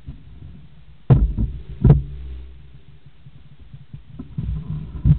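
Mountain bike rolling down a loose gravel and stone track: a low rumble, with two sharp knocks about one and two seconds in as it jolts over stones. The rattling and thumping picks up again from about four seconds in.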